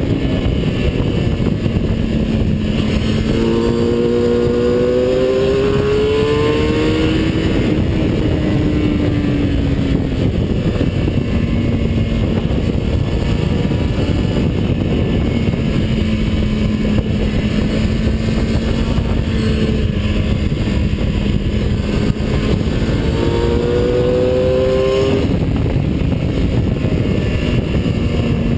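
Onboard sound of a vehicle at speed on a race track: a loud engine over heavy wind and road rumble. The engine note climbs under acceleration about three seconds in and again near the end, and holds fairly steady in between.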